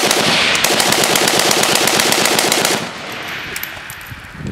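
Semi-automatic rifle bump-fired: a rapid, even string of gunshots lasting nearly three seconds, then the firing stops and the echoes fade with a few weaker pops.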